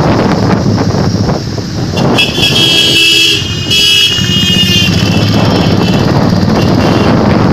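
Royal Enfield motorcycles running in a group ride, with a vehicle horn honking for about two seconds starting about two seconds in.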